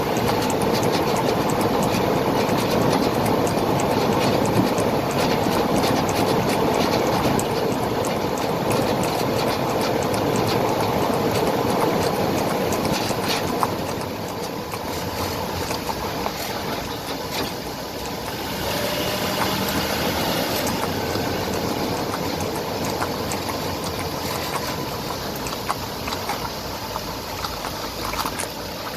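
Vibrating noise from the front passenger-side wheel area of a 2001 Toyota 4Runner: a steady hum with many small rattling clicks, easing off a little about halfway through and picking up again.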